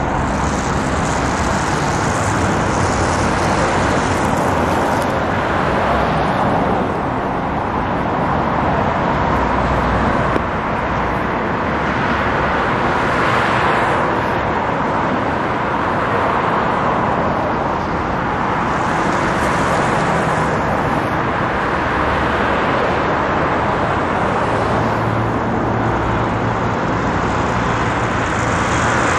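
Road traffic on a multi-lane city road: cars pass one after another, and their tyre noise and engines swell and fade every few seconds over a steady traffic hiss.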